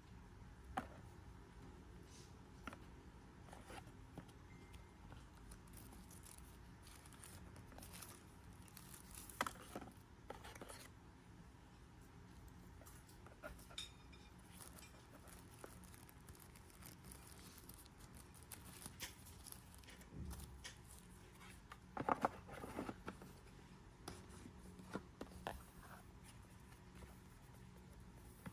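Faint handling of packaging: plastic film and paper card rustling, with scattered small clicks and taps as pieces are lifted and set down. A louder spell of rustling comes about three quarters of the way through.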